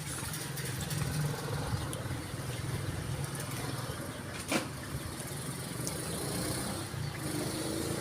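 An engine running steadily with a low hum, and a single sharp click about four and a half seconds in.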